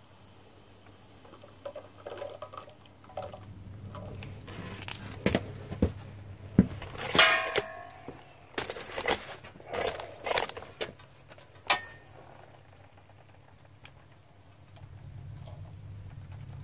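Metal tools handled and set down on concrete: a series of knocks and clanks, with one ringing metallic clang a little past the middle, over a low steady hum. The knocks stop a few seconds before the end.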